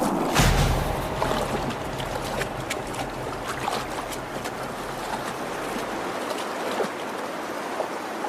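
Stream water rushing over rocks, with many small, irregular splashes. A low rumble under the water fades out about six seconds in.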